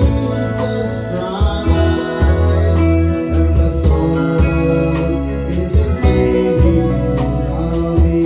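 Live band playing amplified music, with acoustic guitar, keyboard and drums keeping a steady beat, and singing over it.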